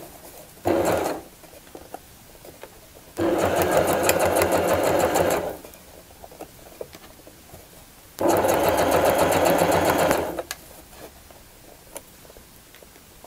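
Electric domestic sewing machine stitching in short runs, here along a zipper with a zipper foot: a brief burst about a second in, then two runs of about two seconds each. In the pauses between runs there are only faint small clicks.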